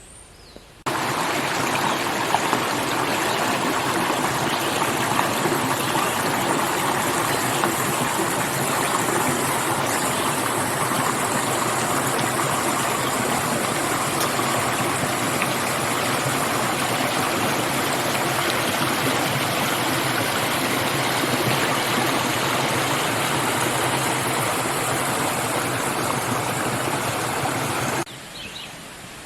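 Rushing brook water running steadily and loudly over rocks; it cuts in suddenly about a second in and stops abruptly near the end.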